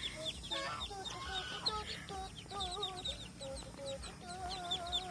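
A brood of ducklings peeping: many short, high, falling peeps several a second, with longer wavering lower calls among them.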